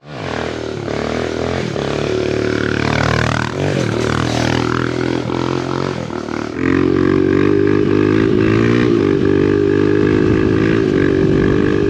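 Kawasaki KLX140 dirt bike's single-cylinder four-stroke engine running at steady throttle during wheelies. About six and a half seconds in it changes to a louder, steadier drone.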